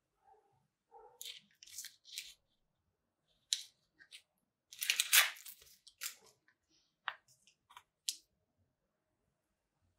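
Red paper label being peeled and torn off a deer antler chew by hand: a series of short, sharp rustling tears, loudest about five seconds in.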